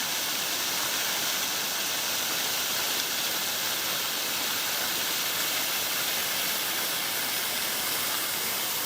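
Waterfall rushing steadily, an even wash of falling water with no breaks.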